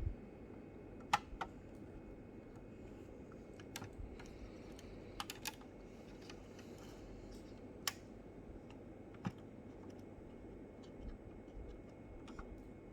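Scattered light clicks and taps, a second or more apart, from the model car and its packaging being handled, over a steady faint background noise.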